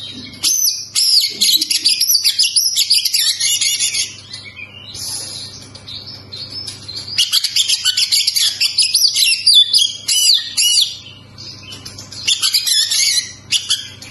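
Oriental magpie-robin (kacer) singing: fast, varied, high warbling and whistled phrases in three loud runs, with softer song in the gaps between them.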